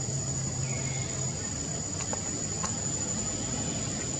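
Insects keeping up one steady high-pitched drone in the trees, with a few faint clicks, a short falling chirp early on, and a low hum that stops about a second and a half in.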